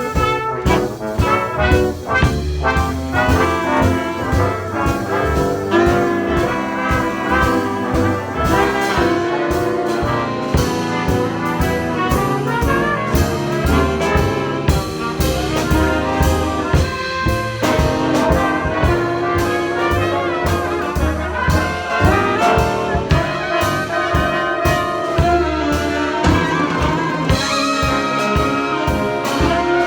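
Jazz big band playing as a full ensemble, with trumpets and trombones carrying sustained chords over the saxophones.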